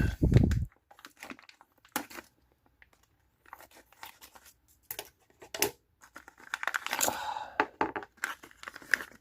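Plastic packaging being handled and torn open: crinkling and tearing with small clicks, loudest about seven seconds in.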